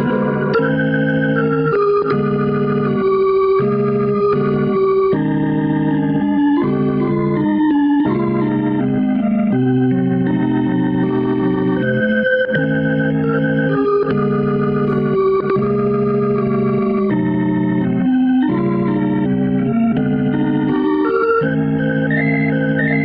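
Organ music playing held chords that shift every second or so, at a steady level.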